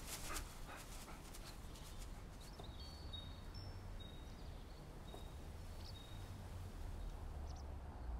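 A dog moving through dry fallen leaves, with a crackly rustle in the first second. A low steady outdoor rumble continues underneath, with a few short, high chirps in the middle.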